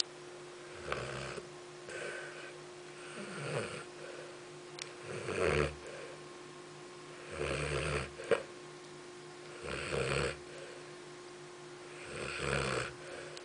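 Dog snoring in its sleep, one snore every two seconds or so, some louder than others. A short sharp sound a little past the middle.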